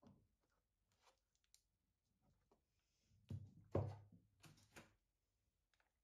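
Clear rigid plastic food containers handled in the hands, giving small crinkling clicks, with a louder run of plastic crackles and knocks about halfway through.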